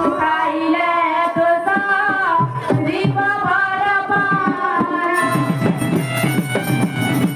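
Live folk-theatre music: a voice sings a melody over hand-drum accompaniment. About five seconds in the singing stops and the band plays on with drums and sustained instrumental tones.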